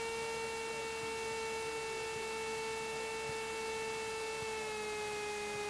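Steady electrical whine on the Cessna 172's radio and intercom audio feed, a buzzy hum of several tones over faint hiss, which steps slightly lower in pitch about four and a half seconds in; the kind of whine typical of alternator noise leaking into aircraft intercom audio, following engine speed.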